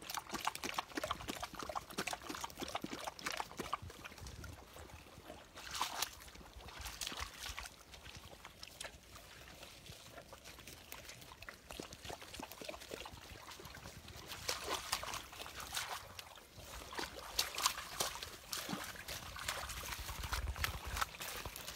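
Large dogs lapping water from a muddy puddle, a quick run of small wet laps at first, then the water sloshing and splashing now and then as a dog wades through it.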